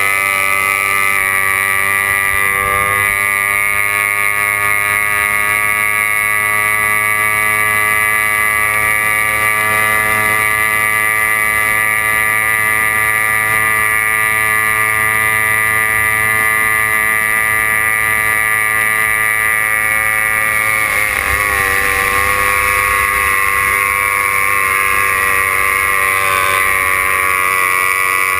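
Racing hydroplane's engine running at high revs, heard from on board: a steady, loud, high-pitched engine note. About three-quarters of the way through the pitch wavers and dips briefly, then settles a little lower.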